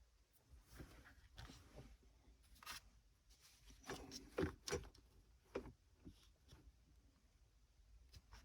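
Faint, scattered clicks and scrapes of plastic dashboard trim being worked loose by hand: the black bezel of the climate-control panel.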